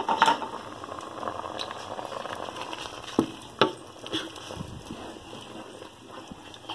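Wooden spoon stirring cooked rice and milk in a hot pot, over a steady soft bubbling sizzle. A few sharp knocks of the spoon against the pan come near the start and a little past halfway.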